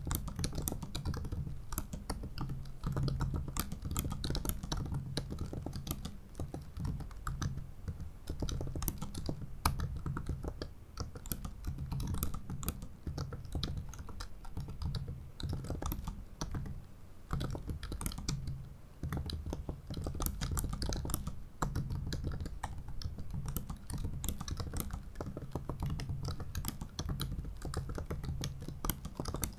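Continuous typing on the ultra-thin butterfly keyboard of a 2017 15-inch MacBook Pro: a fast stream of short key clicks, with a few brief pauses.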